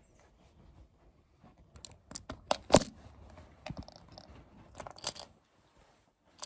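Fingers rubbing and tapping on a phone held close, scratchy crunching clicks and scrapes, irregular, the loudest about a third of the way in.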